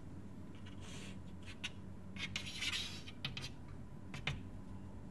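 Writing: a few short scratchy strokes of a pen across a writing surface, one longer stroke about two and a half seconds in, over a faint low electrical hum.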